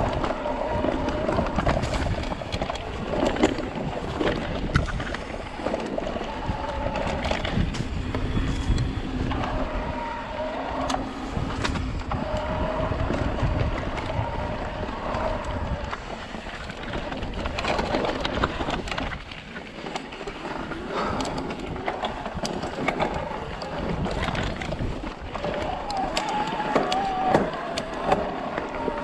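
Shimano Steps E8000 mid-drive e-bike motor whining under hard pedalling in full boost. The whine rises and falls in pitch and drops out now and then, over the rumble and sharp knocks of the bike going over rough trail, with wind on the microphone.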